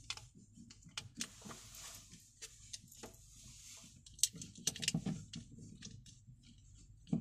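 Scattered light clicks and taps of small plastic and metal parts handled by hand as an LED light module is fitted into a cutout in a cabinet panel, with the sharpest click about four seconds in and a quick run of clicks just after.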